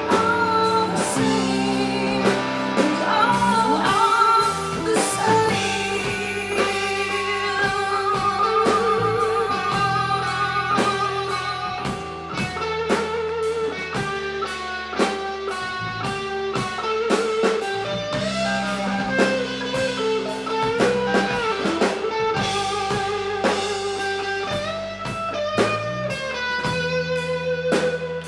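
Live blues band playing: a woman singing over electric guitar and drums, with the electric guitar playing lead lines.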